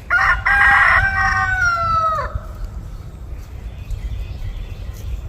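A rooster crowing once: a single call of about two seconds that drops in pitch as it ends.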